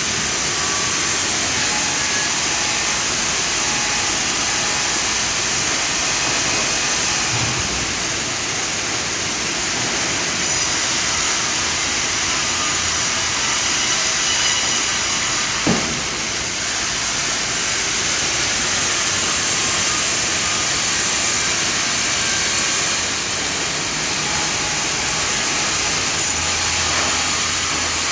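Jabłoński PTP1309C vertical band sawmill running, a loud steady mechanical noise with hiss. There is a short squeak about sixteen seconds in.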